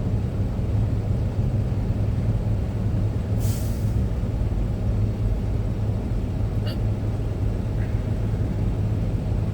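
Steady low rumble of a semi-truck's engine and road noise inside the cab. About three and a half seconds in, a short hiss of air from the truck's air brakes.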